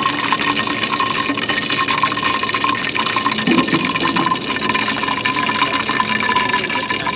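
Lighter-fluid fire burning at the mouth of a heated aluminium Sundrop bottle can: a steady rushing hiss, like gushing vapour, full of fine crackles, with a thin steady tone running through it.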